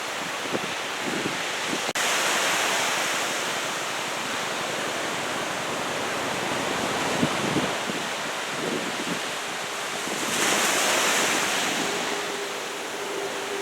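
Ocean surf washing and breaking, with wind buffeting the microphone; the surf swells louder for a moment about ten seconds in. A single sharp click about two seconds in.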